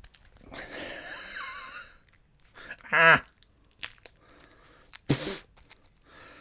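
Plastic shrink wrap crinkling and tearing as it is pulled off a deck of cards. About three seconds in comes a short, loud vocal sound from the man, and a shorter one near five seconds.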